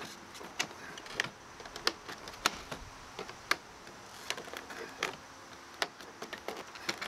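A dozen or so sharp, irregularly spaced clicks and snaps of vinyl corner trim being worked over the old trim with a siding removal tool, its flange snapping into place a little at a time.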